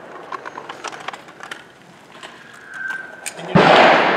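A single handgun shot about three and a half seconds in, sudden and loud, with a long fading echo. Before it come faint scattered clicks of guns and gear being handled.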